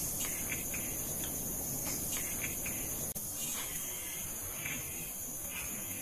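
Crickets shrilling steadily in a continuous high chorus, with a few faint short chirps scattered through.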